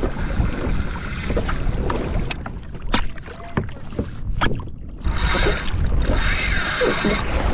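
Fishing reel drag buzzing as a hooked fish pulls line off, over wind on the microphone and water splashing against a kayak hull. The sound changes abruptly several times, with sharp clicks or splashes midway and a strong high buzz over the last two seconds.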